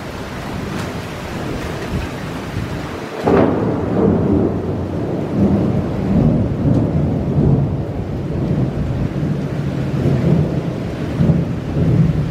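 Steady rain falling. About three seconds in, thunder cracks and then rolls on in a long, low rumble, cutting off abruptly at the very end.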